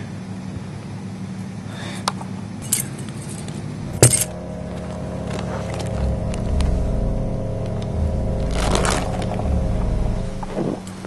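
Small hard objects clinking and rattling as loose items are rummaged through by hand, with a sharp clink about four seconds in, over a steady low drone.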